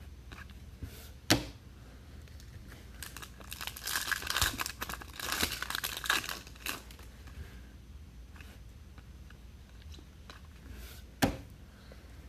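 Foil trading-card pack wrappers being torn open and crinkled, with a burst of crinkling in the middle. Two sharp knocks, one about a second in and one near the end.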